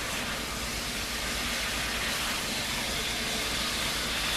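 Baby back ribs cooking in a pot of seasoned liquid, with a steady sizzling hiss.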